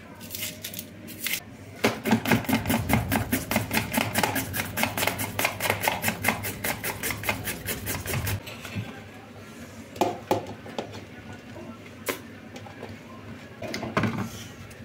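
Carrot being grated on a small plastic hand grater: quick, even rasping strokes, several a second, for about six seconds, then they stop. A few single knocks follow later.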